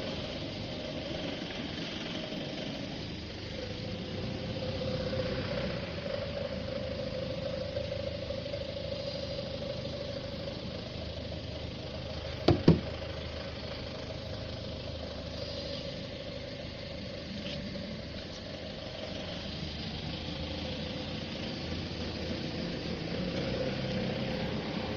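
Touchless automatic car wash machine running: a steady motor hum, with two sharp knocks in quick succession about halfway through.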